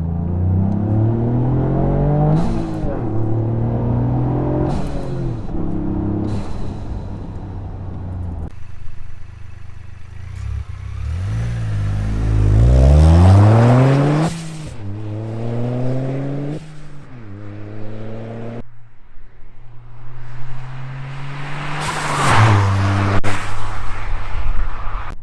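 Toyota GR Yaris's turbocharged three-cylinder engine accelerating repeatedly, pitch climbing and then dropping off sharply. Each time the throttle closes, the open Turbosmart blow-off valve vents to the air with a short loud whoosh, about six times. The biggest pull and loudest moment come about halfway through.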